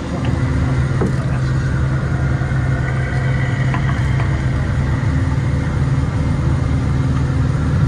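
A motor vehicle's engine and road noise heard from inside the cabin while driving: a steady low drone.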